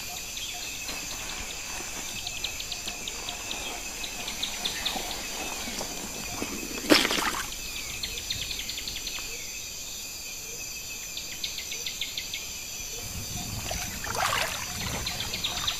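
Forest insect chorus: a steady high buzzing with rapid chirping trills layered over it. A brief louder call cuts through about seven seconds in, and a weaker one comes near the end.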